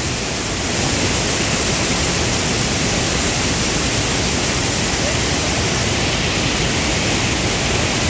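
Steady, loud rush of a tall mountain waterfall, with no break or change in pitch. It grows slightly louder about a second in.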